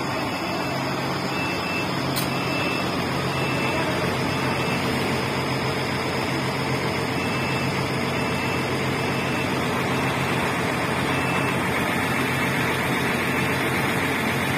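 Heavy diesel engines running steadily as a Komatsu PC200 excavator loads onto a Nissan Diesel self-loader truck, with a high-pitched alarm beeping in short runs, about two beeps a second.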